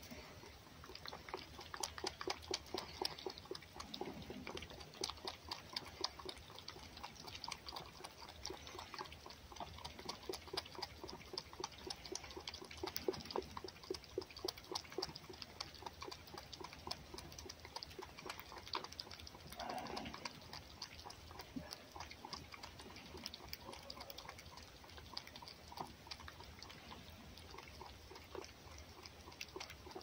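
A fox lapping and chewing raw egg from a small bowl: a quick run of wet licking and smacking clicks, several a second, without a break.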